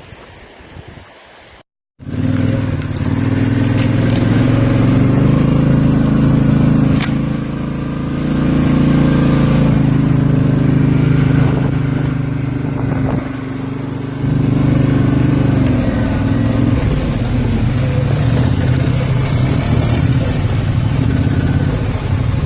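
ATV engine running under way, its note easing off briefly a couple of times as the throttle changes. It starts about two seconds in, after a short quieter stretch that cuts off suddenly.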